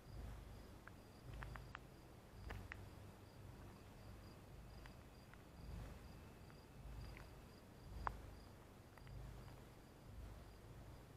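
Faint insect chirping, likely a cricket: an even, high-pitched pulse repeating about three times a second. Low rumbles on the microphone come and go under it, with a few short faint clicks, the sharpest about eight seconds in.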